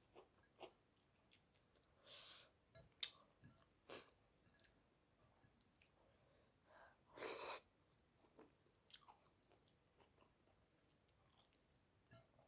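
Faint, close-up eating sounds: chewing and wet mouth noises with scattered soft clicks. Two short breathy bursts, about 2 seconds in and, louder, about 7 seconds in.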